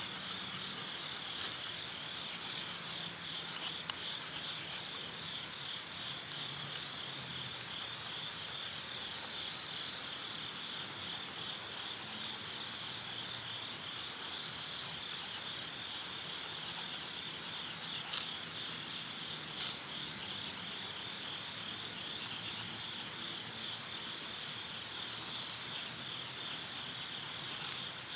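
Insects trilling steadily in a high, rapidly pulsing chorus, with a few faint clicks now and then.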